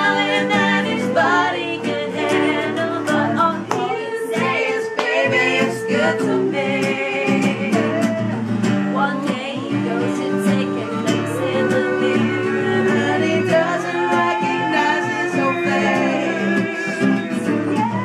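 A woman singing to a small plucked string instrument strummed alongside, sung live at close range.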